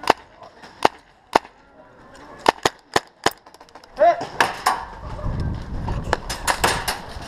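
Tippmann M4 gas airsoft rifle firing single shots on semi-auto, in a quick string of sharp cracks. About four seconds in comes a brief shout, then more shots over a low rumble on the microphone as the shooter moves.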